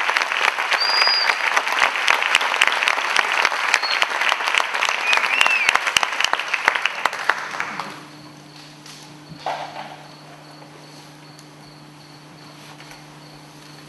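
Audience applauding, the clapping dying away about eight seconds in and leaving a faint steady hum with a high, even pulsing tone.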